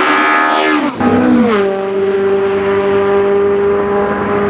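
BMW 2002 racecar's naturally aspirated four-cylinder engine running hard. Its note falls over about the first second and a half, with a brief dip about a second in, then holds a steady high pitch.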